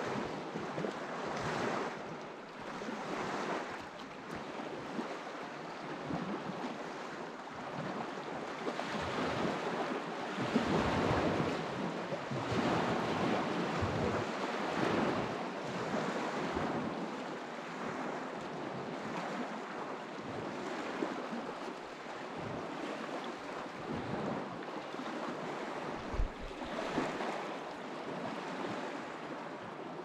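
Water of the Bukhtarma rushing and splashing: a continuous noise that swells and eases every second or two.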